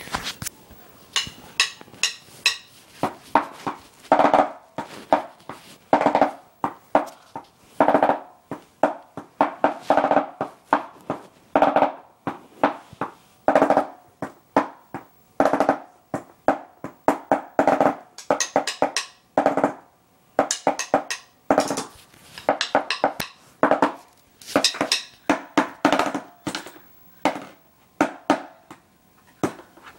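Drumsticks playing a drum pad: an uneven freestyle beat of quick strokes and short rolls, in bursts with brief pauses between them.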